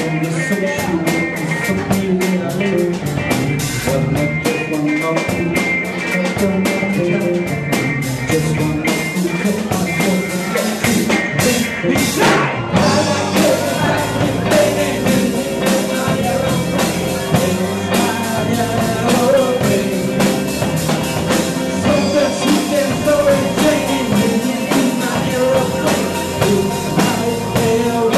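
Live rock band playing: drum kit, bass guitar and electric guitar, with a voice singing.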